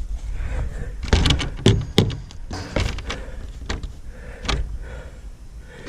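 Clicks and knocks of a chicken coop door and its latch being handled, a quick cluster about a second in and a few single knocks after.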